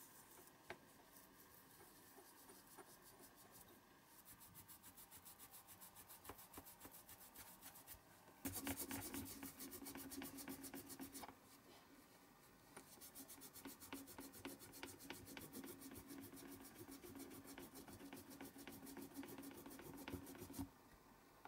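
Cloth rubbed quickly back and forth by hand over a small die-cast metal toy baseplate, in fast even strokes that get louder about eight seconds in, with a faint low steady hum underneath.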